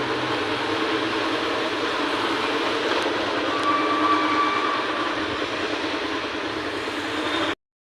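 Steady running noise of a moving vehicle, a dense even rumble and hiss, with a brief faint tone about halfway through; it cuts off abruptly near the end.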